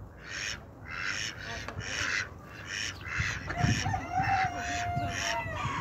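Domestic fowl calling: a string of short, harsh calls at about two a second, joined past the middle by one drawn-out higher call.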